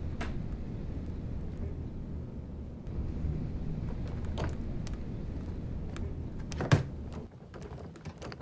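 Rolling suitcase's wheels rumbling low and steadily across a hard floor, with a few knocks, the sharpest near the end. The rumble stops about a second before the end.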